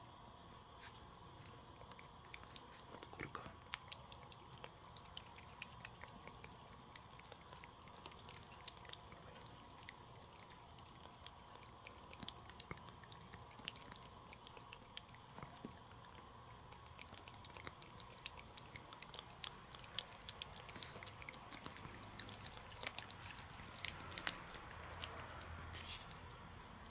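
A cat licking a paste treat from a squeeze tube: faint, quick, irregular wet clicks of the tongue and mouth.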